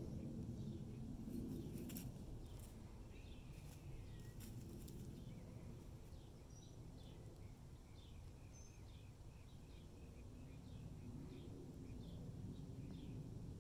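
Outdoor ambience with a small bird chirping in quick runs of short falling notes, over a low steady rumble. A few light dry crackles in the first few seconds.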